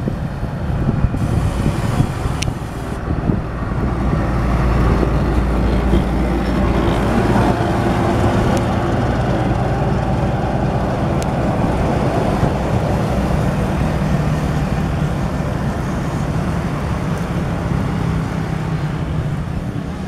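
Diesel engine of a Sakai pneumatic-tyred road roller running steadily with a low hum as the roller compacts fresh asphalt.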